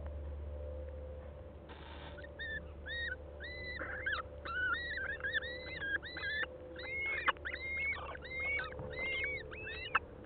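Little owl calling in its nest box: a brief hiss about two seconds in, then a fast run of short, high chirping notes, several a second, that lasts nearly to the end.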